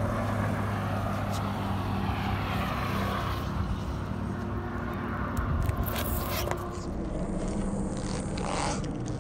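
Car engine idling with a steady low hum. Small clicks and crackles of grit come from under the tyre as it rolls slowly onto a glitter-filled jelly ball and squashes it in the second half.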